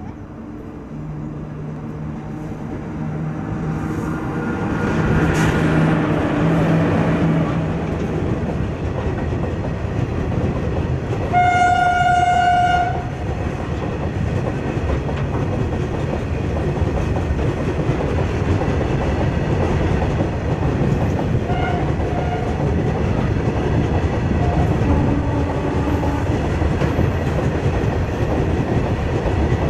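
A WAG7 electric locomotive hauling loaded BOXN open wagons passes at speed. The sound grows louder over the first few seconds as the locomotive comes up and goes by with a steady hum, then gives way to the continuous rumble and clatter of wagon wheels over the rails. A train horn sounds once, for about a second and a half, about twelve seconds in.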